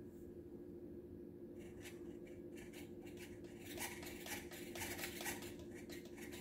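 C-24 RC crawler truck working its way over chrome weight plates: an irregular run of small clicks and scrapes from its tyres and body against the metal, thickest about four to five seconds in.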